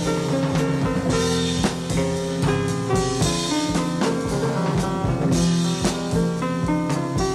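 Instrumental background music with a drum kit and guitar, keeping a steady beat.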